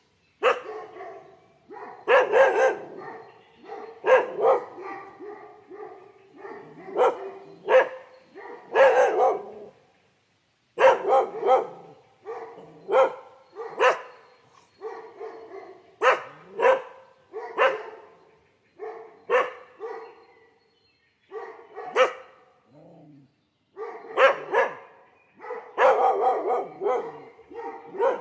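A dog barking repeatedly, in irregular runs of sharp barks broken by short pauses.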